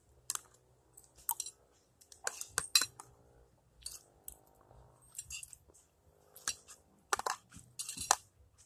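A person eating: chewing, with irregular sharp clinks and clicks of cutlery against a plate.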